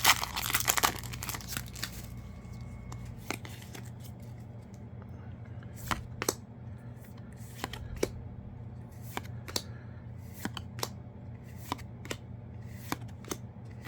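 Yu-Gi-Oh! trading cards being flipped through one by one, each giving a short crisp snap, roughly one a second and irregular. A foil booster pack crinkles during the first couple of seconds.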